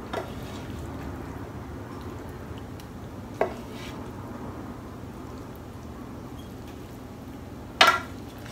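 A spoon knocking against a stainless steel pot as a vegetable mixture is scooped out: three short sharp knocks, the loudest near the end. Under them runs the steady noise of a loud oven fan.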